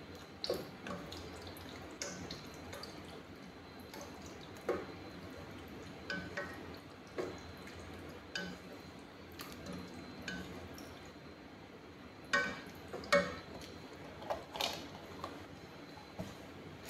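A wooden spoon stirring cooking cream in a stainless steel saucepan, with liquid drips from the carton. The spoon knocks irregularly against the pot, some knocks ringing briefly, and the loudest cluster comes near the end. A faint steady hiss runs underneath.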